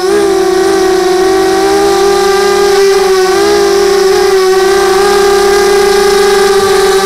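Brushless motors and propellers of a 250-size FPV racing quadcopter, heard through its own onboard camera: a loud, steady high-pitched whine whose pitch dips briefly as the throttle changes, near the start and again about three seconds in.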